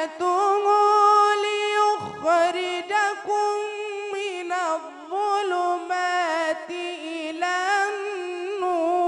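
A young man's voice chanting the Quran in melodic tajweed style. He draws out long ornamented notes that waver up and down in pitch, with a short break about two seconds in.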